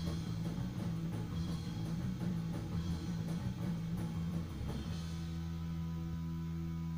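Live rock band of electric guitar, bass guitar and drum kit playing. About five seconds in the drumming stops and a final held chord rings on steadily.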